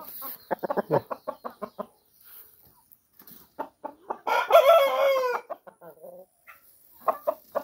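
Aseel chickens clucking in quick runs, then a rooster crows once about four seconds in, a short crow of just over a second that falls in pitch at its end.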